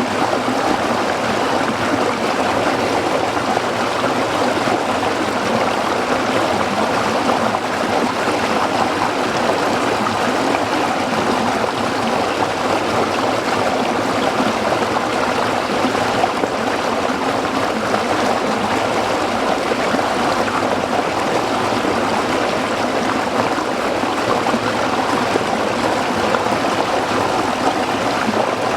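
Water of a small brook flowing over rocks: a steady, even rushing.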